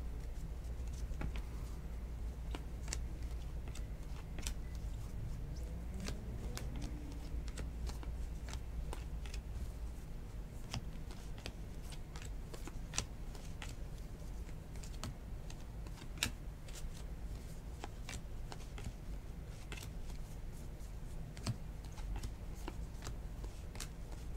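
Baseball trading cards being flipped through one at a time in the hands, a stack of glossy cards giving irregular light clicks and slaps, over a low steady hum.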